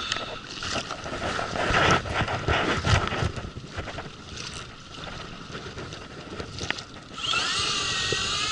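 Wind buffeting the microphone and water against the hull of a small inflatable boat, with scattered knocks from handling the rod and baitcasting reel while a hooked fish is played. About seven seconds in, background music starts, with held tones that waver in pitch.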